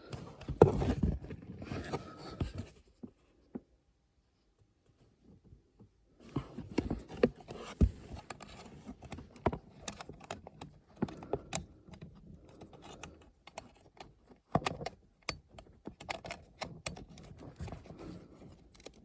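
Handling noise from reconnecting a small light's wiring connector and fitting it into the plastic interior trim: scattered clicks, taps and scrapes. About three seconds in it falls nearly silent for about three seconds.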